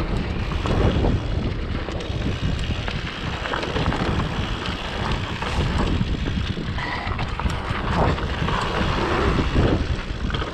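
Wind buffeting the microphone over mountain bike tyres rolling on damp trail dirt, with scattered clicks and rattles from the bike.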